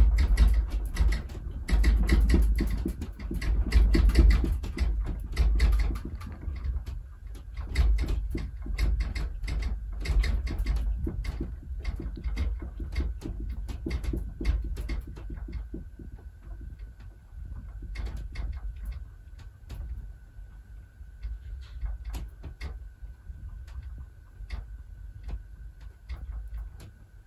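A room's walls, furniture and fittings creaking and rattling in strong earthquake shaking, over a low rumble. Dense clattering at first thins to scattered creaks and knocks as the shaking dies down.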